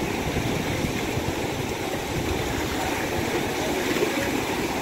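Sea surf washing in over shore rocks: a steady rushing wash of breaking waves and foam.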